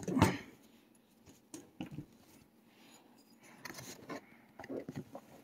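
A long screw being driven by hand into an RC truck's chassis, with small tool clicks and scrapes of metal on plastic. A single sharp knock comes right at the start, and faint scattered clicks follow.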